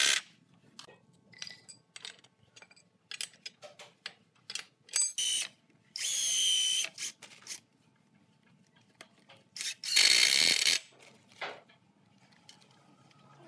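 Cordless impact driver driving screws into a wooden frame joint, running in short bursts of about a second, with a whine, about six seconds in and again about ten seconds in, and a brief burst soon after. Small clicks and knocks of handling between the bursts.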